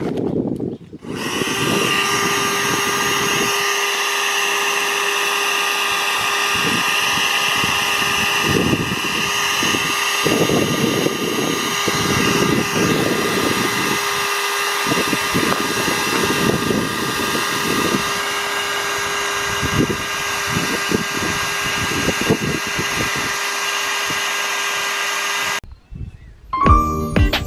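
A motor running steadily at one speed, with irregular low knocks along the way; it cuts off suddenly near the end.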